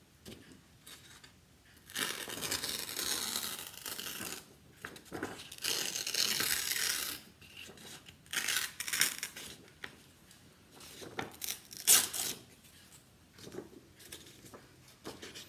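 A sheet of construction paper torn by hand in a series of rips. The first two tears last about two seconds each, the later ones are shorter, and one sharp tear comes about twelve seconds in.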